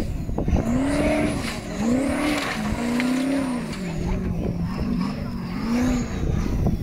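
Formula offroad race car engine revving hard several times, its pitch rising and falling with each blip of the throttle.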